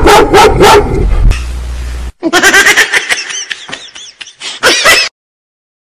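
Bursts of high-pitched laughter, loud and distorted over a heavy low rumble for the first two seconds. After a short break the laughter goes on in quick rising-and-falling squeals and cuts off abruptly about a second before the end.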